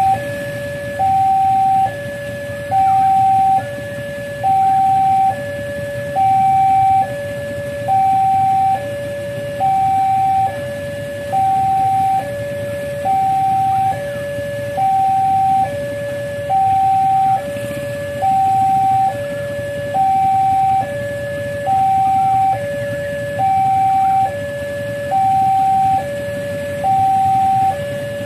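Railway level-crossing warning alarm sounding continuously, a higher and a lower tone alternating about once a second, as the crossing is closed for an approaching train. A low rumble runs underneath.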